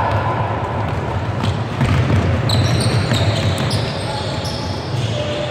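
Basketball game on a hardwood gym floor: players' sneakers squeaking and the ball bouncing as they run the court and shoot, over background voices of spectators. Short high squeaks come in several bursts from about halfway in.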